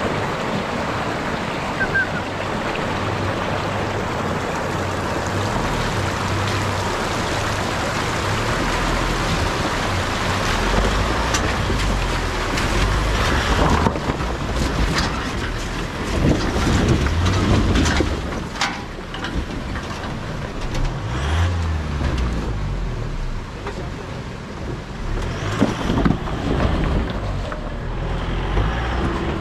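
Rushing stream water with a vehicle engine underneath. Then an Isuzu D-Max V-Cross pickup's engine labours at low speed as it crawls over rocks, its revs rising and falling unevenly several times.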